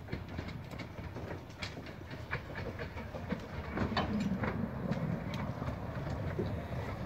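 Two-foot-gauge steam train running on the line: a low rumble with irregular clicking and clanking from wheels and rails, growing louder over the first few seconds.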